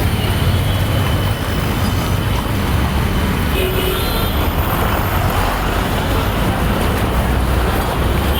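Road traffic noise of a jammed street: engines of buses, trucks and cars running together in a steady low rumble.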